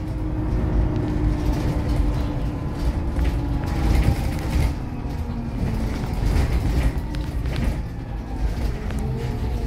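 City bus heard from inside the passenger cabin while driving: a steady engine and road rumble with the engine note shifting in pitch as the bus slows and pulls on, and occasional knocks and rattles from the cabin.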